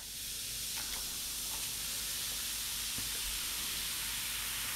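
Baking soda fizzing in a bowl of vinegar and Diet Coke with a Mento dropped in: a steady hiss of carbon dioxide bubbles that builds over the first couple of seconds and then holds, with a few faint ticks about a second in.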